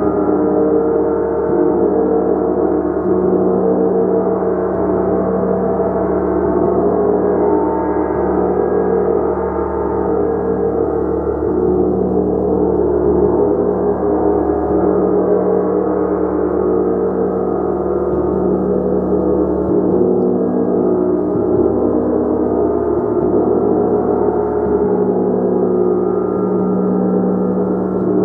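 A gong played continuously, its overlapping tones sustained in a dense, steady shimmering wash with no single strike standing out.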